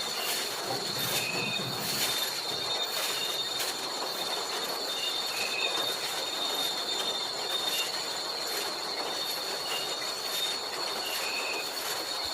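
Forest insects shrilling steadily in a continuous high pitched chorus, with short chirps repeating every second or so over a steady hiss.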